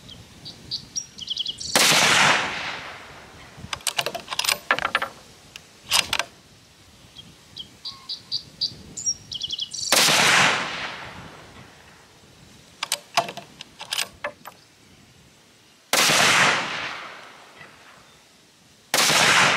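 Savage Axis II bolt-action rifle in .243 Winchester firing four sharp shots, several seconds apart, the last two closer together. Quick metallic clicks of the bolt being cycled follow the first two shots, and birds chirp in the pauses.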